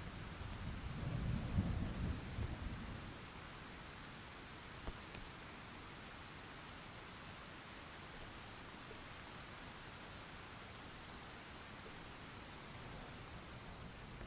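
Thunderstorm: steady rain with a low roll of thunder that swells in the first second or two and dies away about three seconds in, leaving the rain alone.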